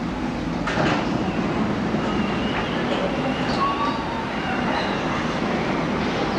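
Elevated metro train in motion, heard on board: a steady running rumble from the wheels and car, with a short knock about a second in. Recorded on cassette tape.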